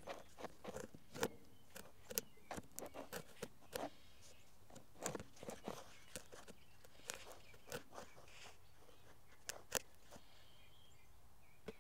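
Faint, irregular clicks and rustles, a few every second, with a pair of sharper clicks near the end.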